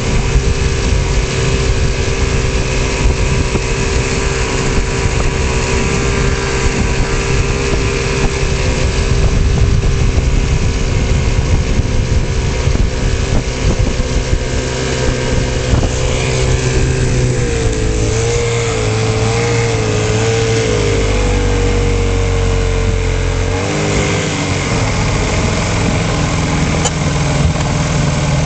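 Boat engine running steadily under power with the boat under way, with a rush of wind and water. About two-thirds of the way in its pitch wavers briefly, then holds steady again.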